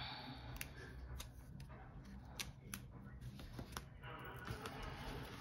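Faint scattered clicks and light paper rustling as a small sticker is peeled from its backing by fingertips and pressed onto a paper planner page.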